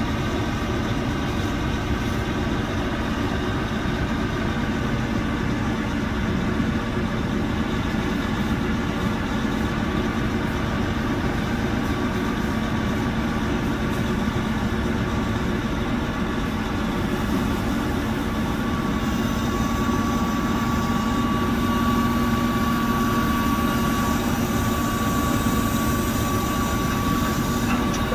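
Grapple truck engine running steadily at idle. A steady higher whine joins about two-thirds of the way in.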